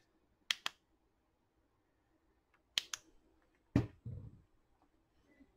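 Handling noise from a circuit board on an aluminium heat-sink bar: two quick sharp clicks, another pair about two seconds later, then a duller knock with a short low rumble.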